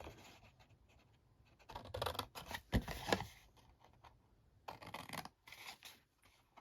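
Craft snips cutting through cardstock, in short bursts of cutting with a couple of sharp snips of the blades about three seconds in, then more cutting near the end.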